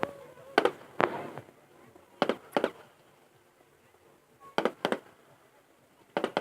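Fireworks going off: sharp bangs, mostly in close pairs every second or two, one of them trailing off in a short crackle.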